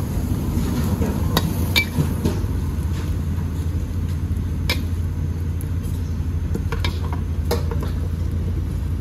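Busy wok kitchen: a steady low rumble with a few sharp clinks of metal utensils, pans and dishes scattered through it.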